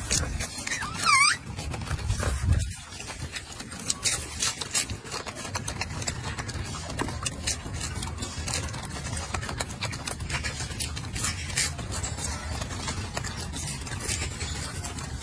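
Golden snub-nosed monkey chewing and tearing lettuce leaves, with scattered crisp crackles and leaf rustling. A short high squeak comes about a second in.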